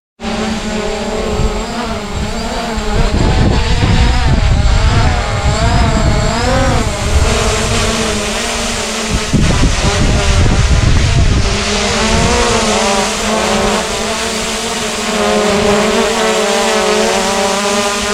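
SJRC F11S quadcopter's motors and propellers whining, their pitch wavering up and down as the drone corrects against the wind, with strong wind buffeting the microphone.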